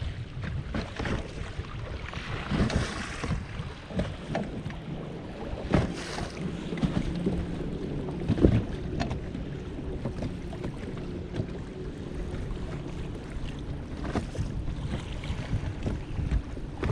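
Wind buffeting the microphone and water slapping against a small fishing boat's hull, with a few sharp knocks on the boat.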